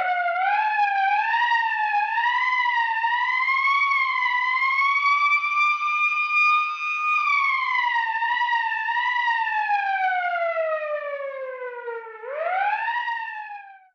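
A siren-like wailing tone that climbs with a wobble, holds high, then slides slowly down. About twelve seconds in it swoops up once more and falls away before cutting off.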